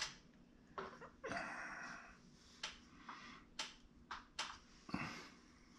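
Faint scraping and light clicking of a metal-tipped sculpting tool working oil-based modelling clay: a short scrape about a second in, then a series of small clicks roughly every half second.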